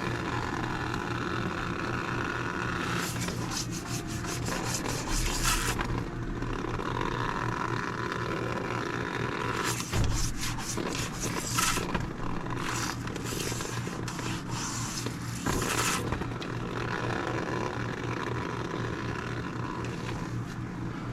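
Irregular scraping and rubbing from hands-on work on the air handler's condensate drain, over a steady low hum.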